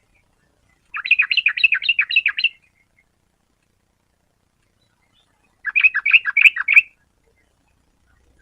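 Yellow-vented bulbul singing two phrases of rapid chattering notes, each about eight notes long: the first starts about a second in, the second, shorter, comes about four seconds later.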